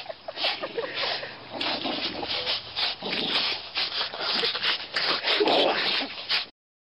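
Dogs hanging by their teeth from a rope tied to a tree, tugging and swinging on it: a quick run of rasping scrapes, about two or three a second, mixed with short low growls. It cuts off suddenly near the end.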